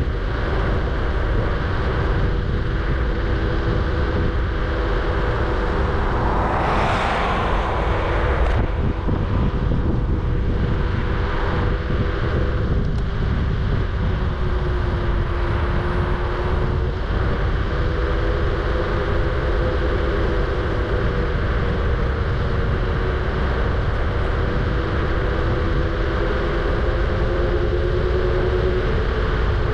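Electric scooter riding along: a steady whine of several tones from its motors that drifts slowly in pitch, over a continuous low rumble of wind and road. A brief rushing hiss swells and fades about seven seconds in.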